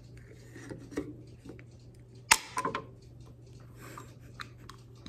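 Aluminium Red Bull can snapped open by its pull tab a little over two seconds in: one sharp pop followed by a brief fizzing hiss of escaping gas. Small taps and rubs of the can being handled come before and after.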